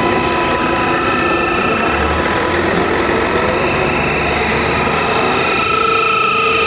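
Electromagnetic emissions from a Volkswagen car's electronics, picked up by a hand-held copper-wire loop antenna at its front: a steady dense buzz with high whining tones. A low hum joins about two seconds in and drops away near the end.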